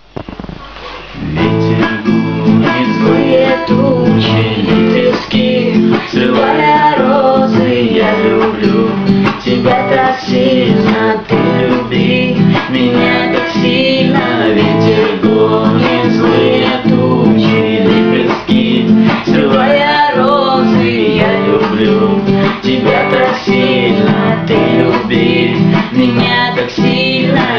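Acoustic guitar music, the instrumental introduction of a song: regular strummed strokes with a melody line wandering over them, coming in about a second in.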